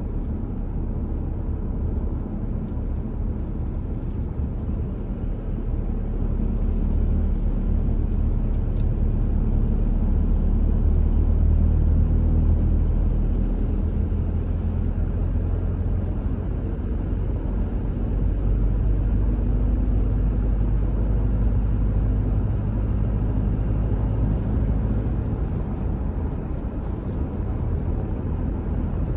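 Car driving along a road: a steady low rumble of tyres and engine that swells a little about a third of the way in and again past the middle.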